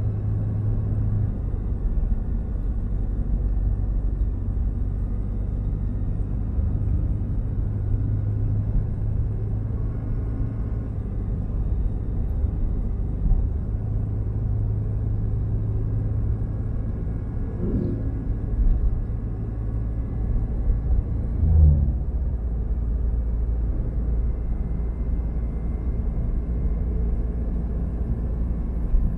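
Chevrolet High Country pickup's 2.8-litre Duramax four-cylinder turbo-diesel running, heard from inside the cabin as a steady low rumble and hum while the truck is driven.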